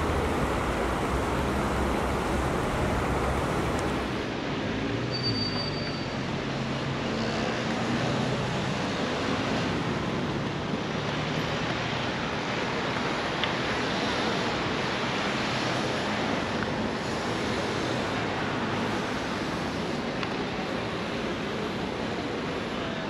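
Steady city traffic noise from passing cars and vans in an open urban square. About four seconds in the sound changes, with less low rumble afterwards.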